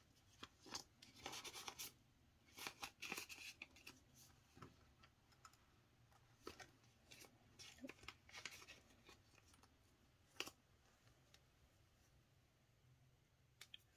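Faint crinkling and rustling of Canadian polymer banknotes being handled and slipped into a plastic cash envelope in a ring binder, in two spells of small crackles and clicks, with one sharper tick a little past the middle.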